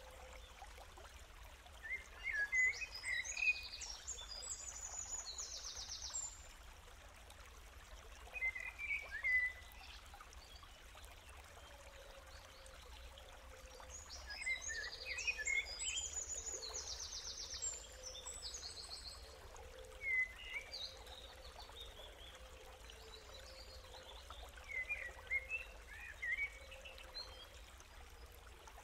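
Songbirds singing in recurring phrases of short chirps and fast trills over a faint, steady rush of running water.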